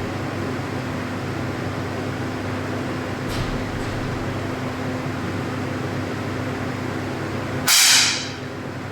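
A single 10 m air pistol shot near the end: a sharp pop with a short burst of escaping air, over a steady mechanical hum.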